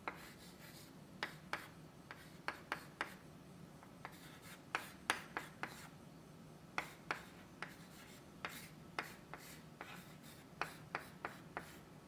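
Chalk on a blackboard as a formula is written out: a string of short, irregular taps and scratches.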